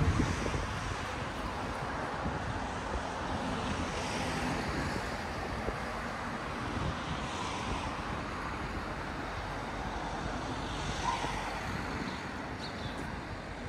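Road traffic passing beside a pedestrian promenade: a steady rush of cars, with a few vehicles swelling louder as they go by.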